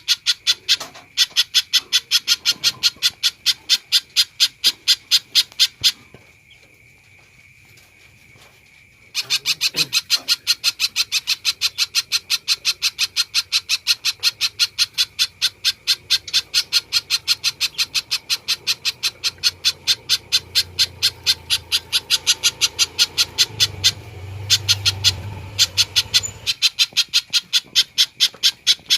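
Spiderhunter (pijantung) calling in a fast, unbroken series of sharp, high notes, about four to five a second. It breaks off for about three seconds some six seconds in, then carries on.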